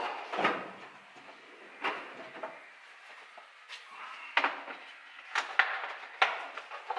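Metal hand tools being picked up and handled on a workbench: a string of irregular knocks and clinks.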